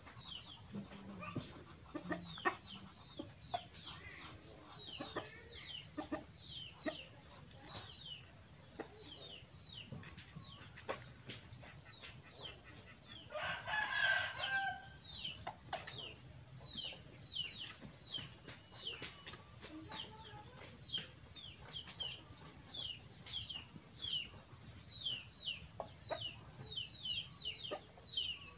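Chickens calling: a near-continuous run of short falling chirps, with a rooster crowing once about halfway through, over a steady high-pitched hum.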